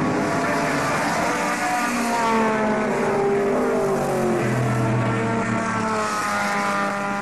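Several historic racing saloon cars at high revs going past on the circuit, their engine notes overlapping and rising and falling as they pass and change gear.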